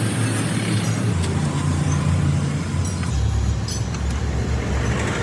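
Motorcycle engine running with a low, steady hum that drops in pitch in two steps, about one second and three seconds in.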